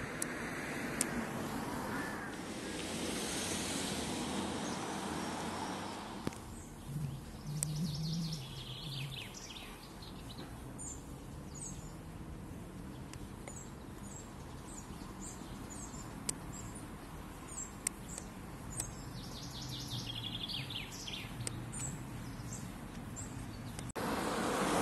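Outdoor ambience: a steady rushing noise for about the first six seconds, then small birds chirping and singing over a quiet background, with two short trilling runs.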